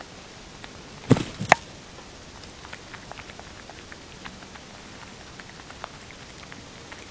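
Common brushtail possum foraging on dry grass: scattered small clicks and rustles over the steady hiss of a security camera's microphone, with two louder knocks about a second in.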